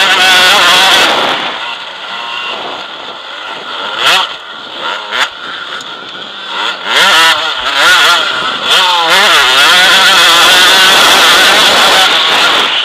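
KTM enduro motorcycle engine heard from an onboard camera on the bike, revving up and down with the throttle while riding a dirt course. It is loud at first, eases off for several seconds, then rises and is held high again from about halfway.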